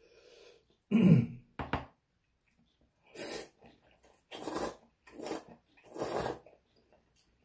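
A person slurping Korean ramyeon noodles from a bowl: four loud slurps in the second half. Before them, about a second in, comes a short throat-clearing sound.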